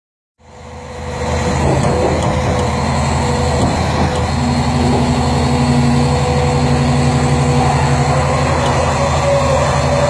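Liebherr PR 776 crawler dozer's large diesel engine running steadily, with a thin steady whine over the engine note. The sound fades in over the first second.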